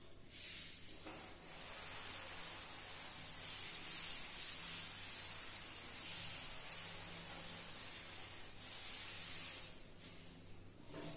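Cloth duster wiping chalk off a chalkboard: a dry, hissing rub in repeated sweeping strokes that stops about ten seconds in.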